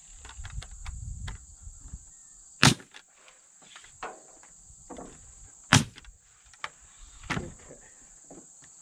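Pneumatic framing nailer firing twice, about three seconds apart, driving nails into a wooden roof truss, with a duller knock near the end. A steady high chirring of crickets runs underneath.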